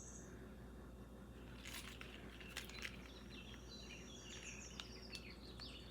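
Faint crinkling and light clicks of small items and packaging being handled, with a run of faint high chirps in the second half.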